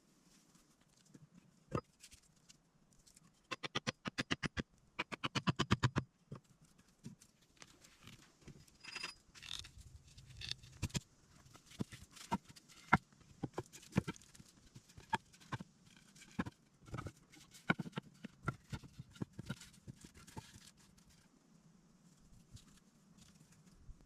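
Knocks and snaps, with two quick runs of rapid, evenly spaced clicks about four and five seconds in, then a long stretch of irregular knocks.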